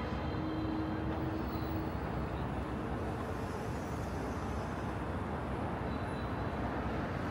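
Steady city street ambience: a continuous rumble of road traffic, with a faint hum in the first couple of seconds.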